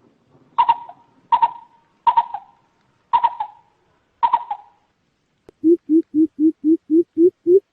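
Coucal calling: five separate, sharper calls about a second apart, then near the end a fast series of deep, hollow hoots, about four a second, creeping slightly upward in pitch.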